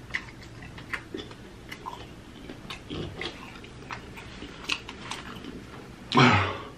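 A person chewing a bread roll close to the microphone: soft wet mouth clicks and lip smacks scattered throughout. Near the end comes a loud, breathy exhale.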